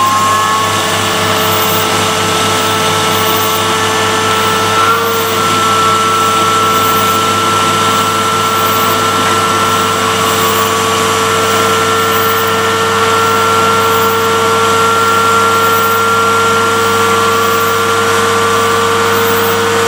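Homemade CNC lathe taking a light finishing cut on a No. 2 Morse taper at 1100 rpm: a steady spindle whine with cutting noise. The pitch shifts slightly about five seconds in.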